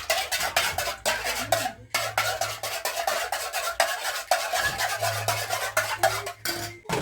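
A metal utensil beating ingredients in a bowl by hand, a fast run of clinks against the bowl at about four to five a second.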